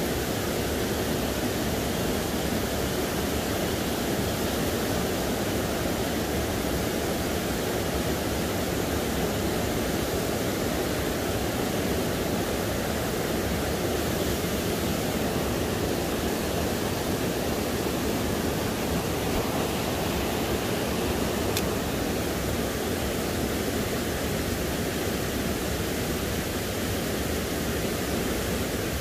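Steady rushing of a shallow rocky stream, water running over boulders.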